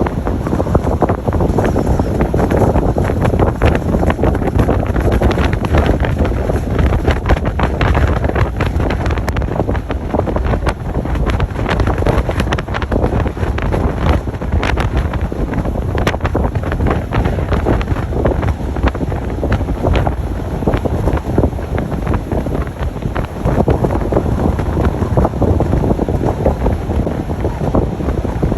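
Strong wind buffeting a GoPro action camera's microphone: a loud, continuous rush crackling with rapid gusty pops.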